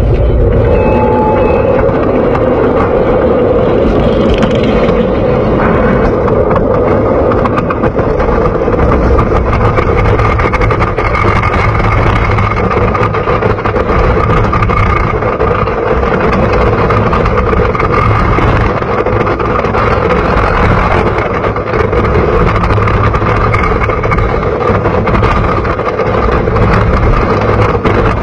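Mystic Timbers, a GCI wooden roller coaster, with its train running along the track at speed: a steady, loud rumble and clatter of the wheels on the wooden track.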